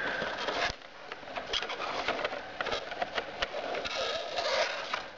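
Rustling and scraping of a concertina-folded card instruction manual being handled and set out on a wooden tabletop, with many small ticks and taps of the card.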